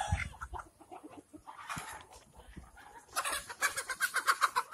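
Kadaknath chickens clucking: faint scattered calls at first, then a quick, louder run of short clucks about three seconds in.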